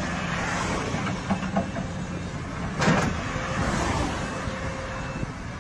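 Steady machinery or vehicle noise with a faint low hum, broken by a sharp knock about three seconds in.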